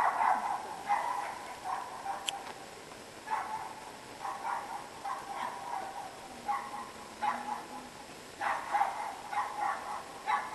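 A dog barking repeatedly in short clusters of barks with pauses between, echoing in a large hall.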